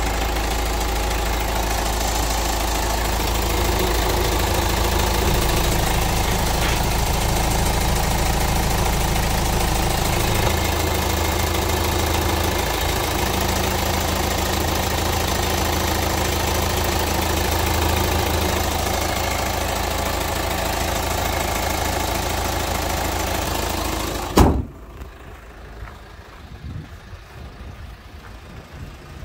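2010 Hyundai Tucson's 2.0-litre CRDi turbo-diesel four-cylinder idling steadily with the hood open. About 24 seconds in, a single loud thud as the hood is shut, after which the sound is much quieter.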